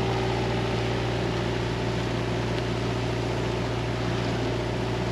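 Sailing yacht's inboard engine running steadily under way, a constant low drone over an even hiss of wind and water.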